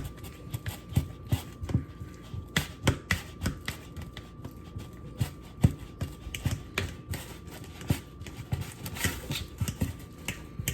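A fork mashing ripe bananas and softened butter in a bowl: irregular clicks and taps of the fork against the bowl, about two or three a second.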